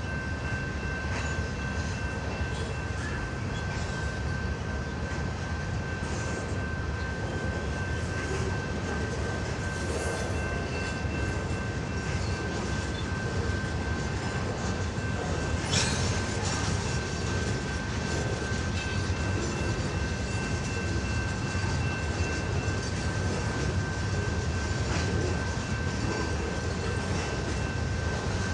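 CN freight train rolling past: a steady low rumble of wheels on rail, with a thin, steady high-pitched tone over it and an occasional knock, clearest about halfway through.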